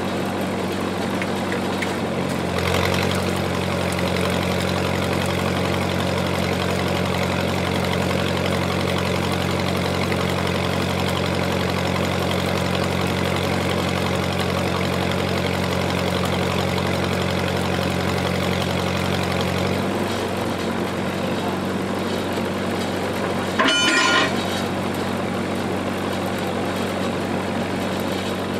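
Engine-driven generator running steadily. About two seconds in, its hum grows heavier and holds under load while an arc is worked on the steel sawmill frame, then eases back at about twenty seconds. A short, loud, sharp sound near the end.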